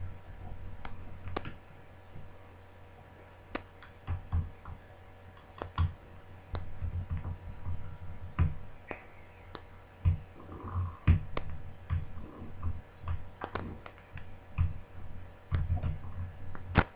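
Irregular small clicks and knocks of a screwdriver taking screws out of a Toshiba Satellite T130 laptop's plastic screen bezel, with handling of the plastic parts.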